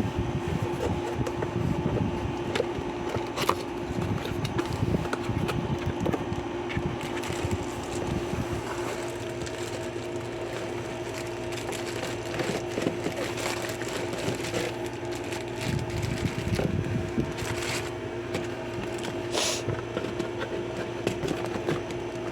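Cardboard and plastic packaging being handled during an unboxing: irregular crinkling, rustling and clicks over a steady hum.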